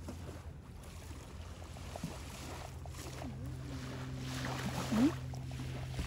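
A steady low motor drone, with a few short faint pitched sounds and a swell of hiss about five seconds in.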